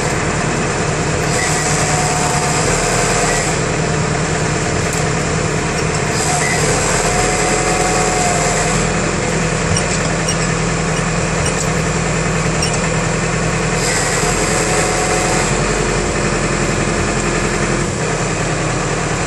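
Tractor engine running steadily, driving the hydraulic pump for a forestry trailer's Cranab FC53DT crane. Three times a higher hiss of hydraulic oil through the electro-hydraulic valves comes in for two or three seconds as crane functions are worked.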